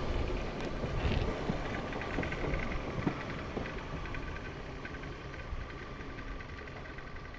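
Ex-London Underground 1938-stock class 483 electric train running on the rails, a steady rumble with a faint steady whine and a sharp click about three seconds in, fading steadily as the train draws away.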